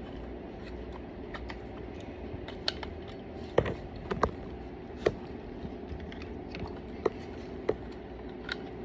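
Plastic attachments of a pet-grooming vacuum kit being handled and fitted, a scatter of light clicks and knocks, a few sharper about halfway through, over a steady low hum.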